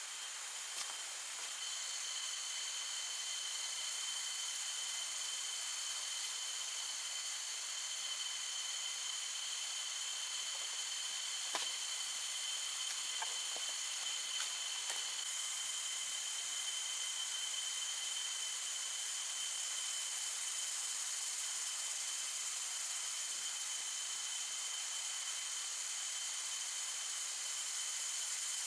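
Forest insects droning steadily in a high hiss with two thin continuous pitches, the higher of which drops out about halfway through; a few faint clicks near the middle.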